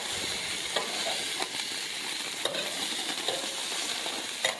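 Hamburger patties sizzling steadily on a hot grill grate. A metal spatula scrapes and clicks against the grates a few times as the patties are lifted and flipped.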